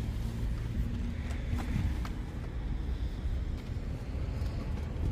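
Steady low rumble of a vehicle on the move, with a couple of faint knocks between one and a half and two seconds in.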